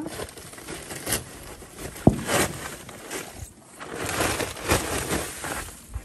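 Plastic tarp rustling and crinkling in irregular bursts as it is tugged on a snow-covered grill, with snow shifting on it, and a sharp knock about two seconds in.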